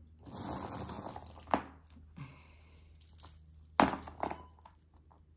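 Small metal costume-jewelry pieces (earrings, rings, pins, chains) rattling and clinking as a hand sifts through a pile of them on a table. A stretch of rustling is followed by a sharp click about a second and a half in, and a louder clack with a few lighter clicks near four seconds.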